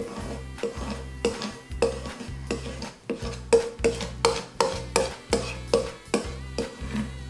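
Background music with a steady beat, over the scraping of a hand rubbing clear vinyl transfer tape down onto a wooden cutting board to make the decal stick.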